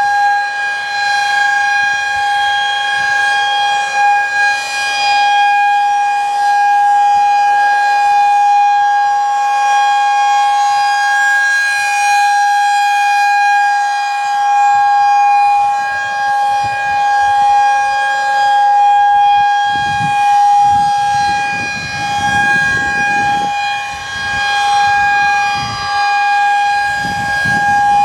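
Federal Signal 2001-SRNB outdoor warning siren sounding a steady, very high-pitched, really loud tone, swelling and fading in loudness.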